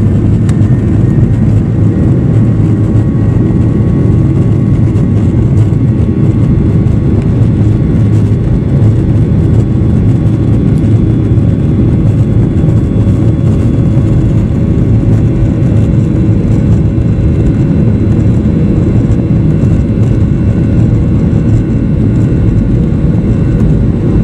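Boeing 737's turbofan engines at takeoff thrust during the takeoff roll, heard inside the cabin: a loud, steady roar with high steady whining tones over it.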